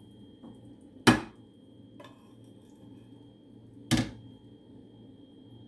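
Two sharp knocks about three seconds apart: a spoon rapped against the rim of the mixing container to knock off the two spoonfuls of butter.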